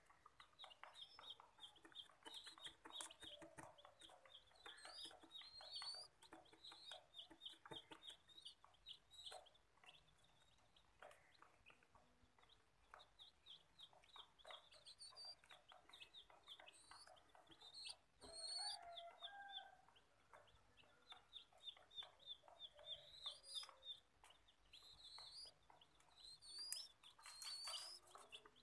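Faint, rapid runs of high peeps from a young bird, broken by short rising chirps, with light scattered clicks.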